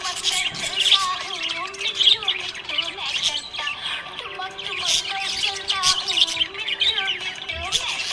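Budgerigars chirping and warbling in a dense, unbroken chatter of quick, high chirps.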